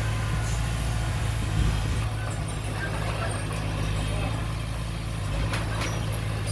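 Heavy diesel earthmoving machine engine running steadily at low speed, with a couple of light knocks near the end.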